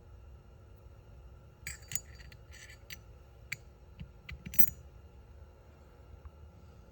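A quick run of light metallic clicks and clinks, with the loudest near the middle: the furler's small steel ball bearings, bearing cage and race being handled. A low steady hum runs underneath.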